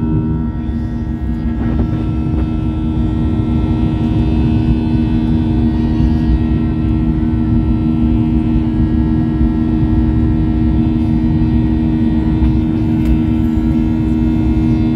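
Jet airliner's turbofan engine running at climb power after takeoff, heard from inside the cabin: a steady drone with a low rumble under several steady humming tones.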